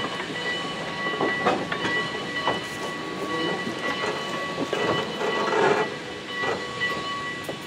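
Railroad cars led by a caboose rolling slowly over jointed track, with scattered clicks from the wheels and a steady high-pitched squeal that fades near the end.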